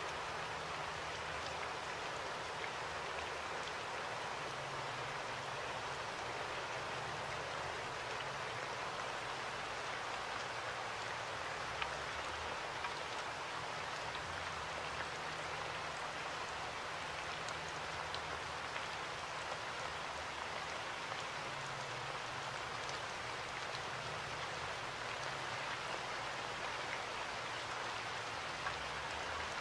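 Steady rain: an even hiss with scattered light drop ticks.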